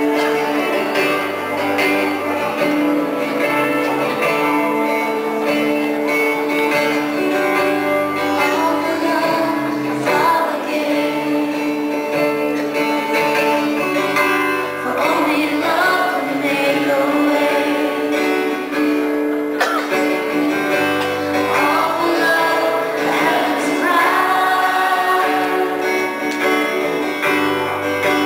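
Live band playing a worship song, led by strummed acoustic guitar with drums and keyboard, and singing coming in about halfway through.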